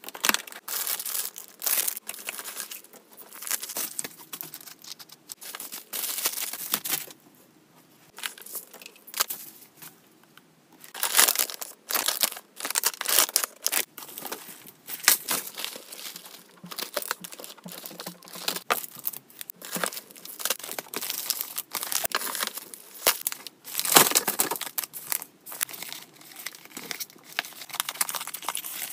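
A cardboard parcel being unpacked by hand: packing tape tearing, cardboard flaps and boxes scraping, and plastic wrapping crinkling, in irregular bursts with short pauses.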